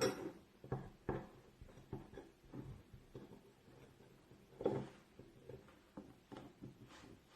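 Light, irregular knocks and taps of kitchen utensils as grated turmeric is put into a strainer over honey.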